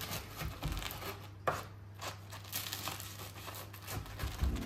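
Kitchen knife cutting through crisp, toasted flatbread on a wooden cutting board: a run of crackling crunches from the crust as the blade saws through, with one sharper click about a second and a half in.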